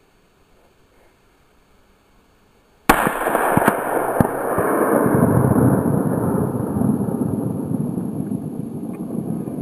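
A single rifle shot about three seconds in: a sharp crack followed by a long rolling echo that swells and slowly fades over several seconds. Two short sharp clicks come within a second or so after the shot.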